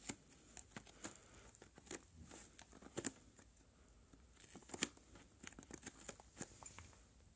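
Faint tearing and crinkling of a packaging seal being picked at and peeled off a box, with scattered small clicks and crackles and a couple of sharper snaps about three and five seconds in.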